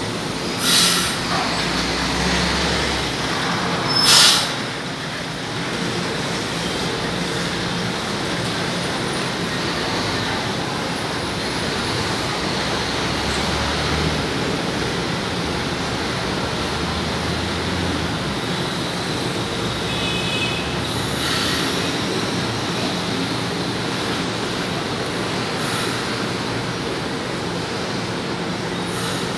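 São Paulo Metro Line 1 train standing at the platform: a steady mechanical hum and platform noise, with two short, loud hisses of air in the first few seconds and a brief tone about two-thirds of the way through.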